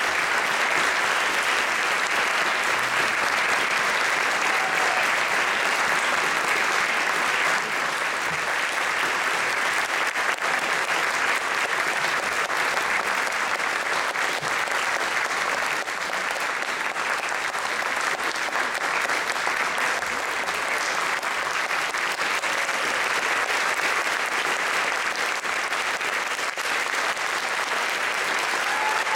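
Audience applauding steadily, a dense wash of hand-clapping.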